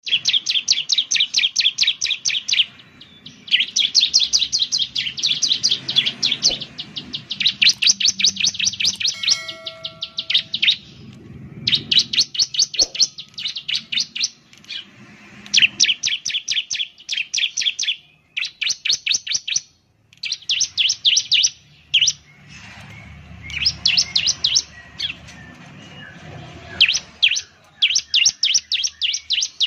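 Bar-winged prinia (ciblek) singing: fast trills of sharp, high chirps, roughly ten notes a second, in repeated bursts of one to two seconds with short gaps between.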